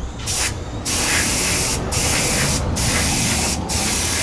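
Airbrush spraying DuraCoat paint: a steady hiss of air and paint, broken by brief pauses about once a second between passes.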